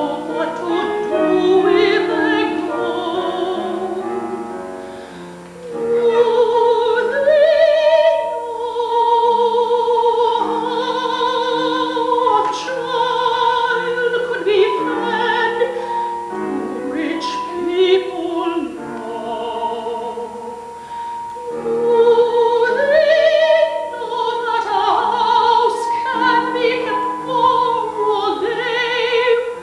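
A woman singing an operatic solo with a wide vibrato over piano accompaniment, with short breaths between phrases about five seconds in and again after twenty seconds.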